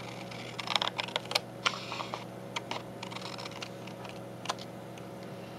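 Scissors snipping through thick paper paint sample cards: a quick run of sharp crisp snips, then a few scattered ones, with a last snip near the end.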